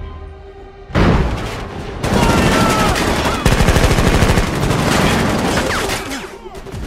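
Automatic rifles firing in a rapid volley, several guns at once, as a film sound effect. The gunfire starts suddenly about a second in after a low hum, runs as a dense stream of shots, and eases near the end.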